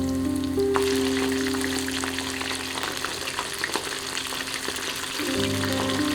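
Food sizzling and crackling as it fries in hot oil, the crackle growing denser about a second in.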